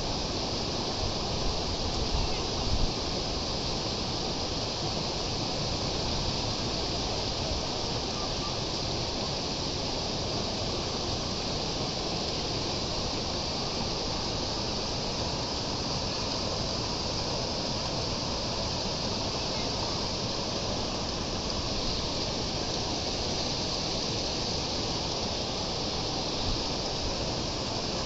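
Steady rush of stream water pouring from pipe outlets into concrete trout-farm raceways.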